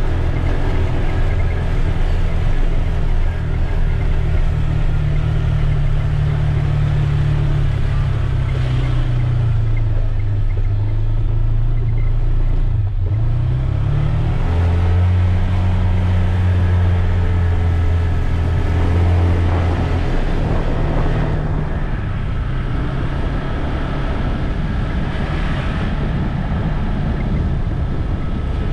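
Motorbike engine running steadily under way, its pitch sagging, dipping sharply about halfway through and then rising and holding as the throttle changes, with rushing wind and road noise.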